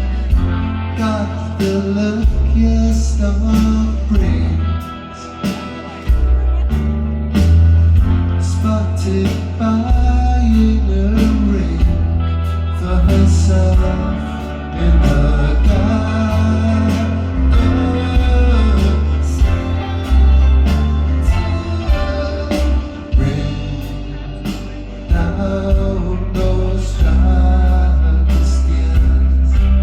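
Rock band playing live: a male voice singing over guitar, a heavy bass line and drums.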